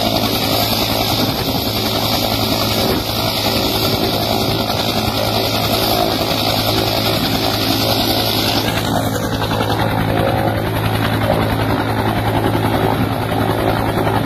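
Helicopter idling on the ground with its rotor turning: a steady, loud run of turbine and rotor. The high hiss on top drops away about nine seconds in.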